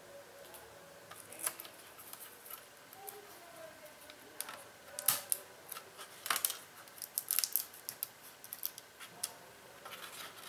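Irregular sharp clicks and light taps of fingers and a plastic pry tool handling the cable connectors and parts inside an open laptop's chassis.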